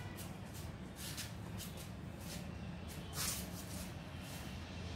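Quiet outdoor background with a few faint clicks and a soft rustle about three seconds in; no shot is heard.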